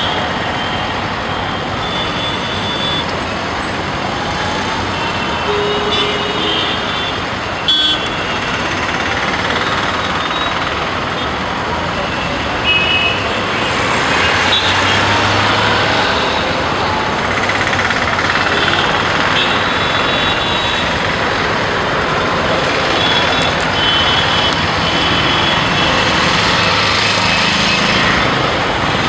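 Busy intersection traffic: a steady din of car and auto-rickshaw engines and tyres, with short vehicle horn toots sounding again and again. One sharp knock about eight seconds in.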